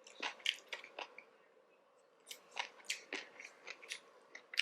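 Close-up chewing of sushi: a run of short wet clicks and soft crunches from the mouth, pausing for about a second near the middle.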